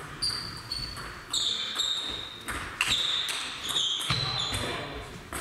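Table tennis rally: the ball clicks back and forth off the bats and the table, about two hits a second, several of them followed by a brief high ringing tone. Some low thuds come from the players' footwork around the middle of the rally.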